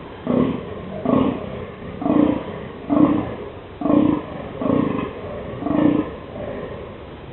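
A fallow deer buck groaning in the rut: seven short, deep, belching calls, about one a second, stopping about six seconds in.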